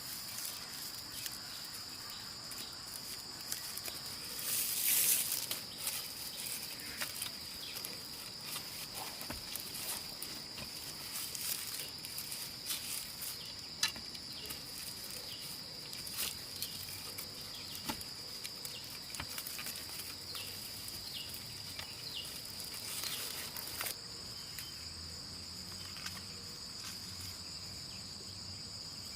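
A steady, high-pitched drone of insects, with irregular clicks and rustling over it. The rustling swells into a louder burst about five seconds in and stops about 24 seconds in, after which only the insects remain.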